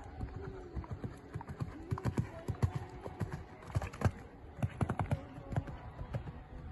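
Hoofbeats of a show-jumping horse cantering on a sand arena, coming as dull thuds in uneven groups.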